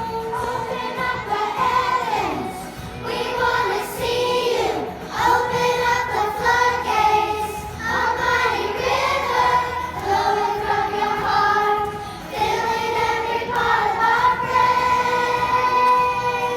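Music: voices singing a melody with long held notes over a steady accompaniment.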